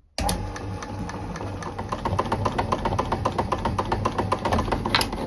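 Hexacut power hacksaw switched on and cutting a round metal bar. It starts suddenly a moment in, with the motor running and the blade sawing back and forth in a steady, rapid, regular clatter of strokes.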